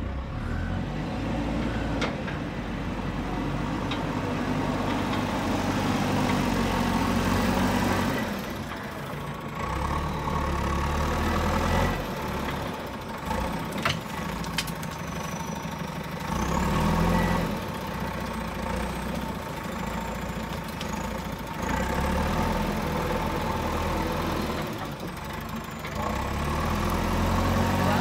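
JCB 3DX backhoe loader's diesel engine running under load as the front bucket carries soil, its pitch and level rising and falling every few seconds. A few short clanks are heard.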